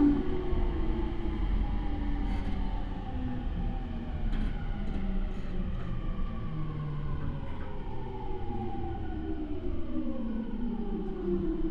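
Traction motors and Mitsubishi IGBT VVVF inverter of a JR E231 series commuter train whining in several tones that fall steadily in pitch as the train brakes on the approach to a station. The whine is heard from inside the motor car, over the rumble of wheels on rail.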